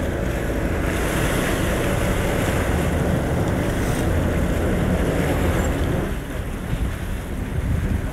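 A sportfishing boat's engines running steadily under a wash of churning water at the stern, with wind buffeting the microphone.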